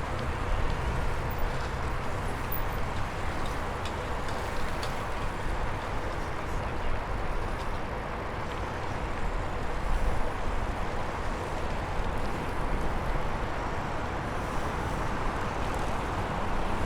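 Steady rush of outdoor ambience recorded from a moving bicycle: low wind rumble on the microphone under a broad hiss of traffic, with no single event standing out.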